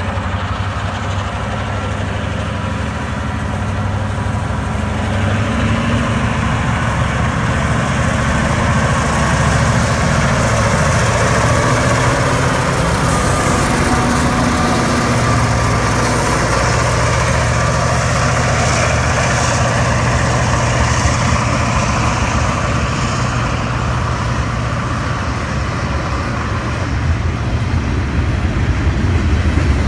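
Freight train passing close by. The diesel locomotives' engines run with a steady low hum as they approach and go by, growing louder over the first several seconds. Near the end the boxcars rattle past on the rails.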